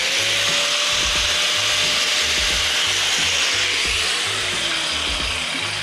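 Small angle grinder with a thin cut-off disc cutting into the steel edge of an excavator dozer blade: a steady, high grinding hiss. In the second half its pitch falls and it gets quieter as the disc winds down.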